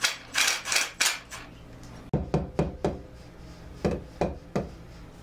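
Sharp knocks on wood during workshop carpentry: a quick run of strikes at first, then four heavier thuds about two seconds in and three more near the four-second mark.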